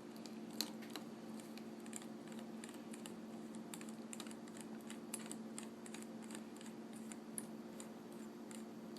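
Light, irregular clicks and ticks of a small Phillips screwdriver turning out the tiny screws inside an iPhone 3G or 3GS, over a faint steady hum.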